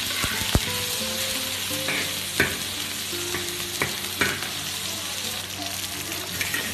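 Dried chillies sizzling in hot oil in a wok while a metal wok spatula stir-fries them, with a steady hiss and several sharp scrapes and clangs of the spatula against the wok.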